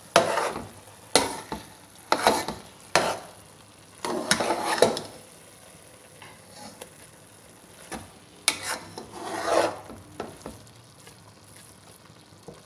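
A metal slotted spoon stirs and scrapes thick grated-carrot halwa around a steel pot in a series of irregular strokes, with quieter pauses in the middle and near the end. The carrots are simmering while the added milk cooks down until dry.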